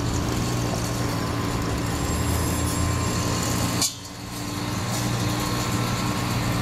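A steady diesel engine drone, interrupted about four seconds in by a short sharp sound and a brief drop before it resumes.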